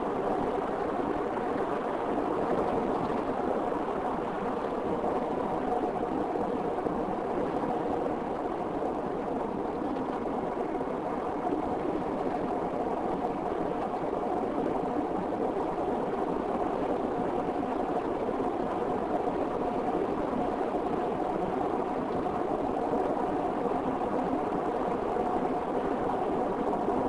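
A moving car's engine and tyre noise, a steady drone that holds even throughout.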